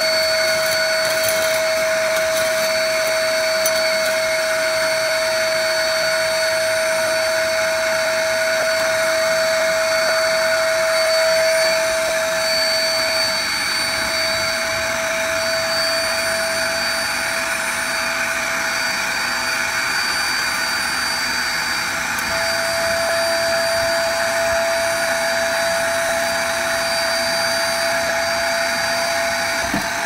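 TACKLIFE 800 W ash vacuum running steadily as its nozzle sucks up fireplace ashes: a steady motor whine whose main tone fades a little about halfway through and returns later.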